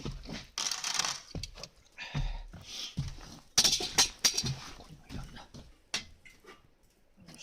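Camp gear being handled at a fire pit: irregular rustling and scraping with sharp knocks and clatter, busiest about four seconds in and thinning out near the end.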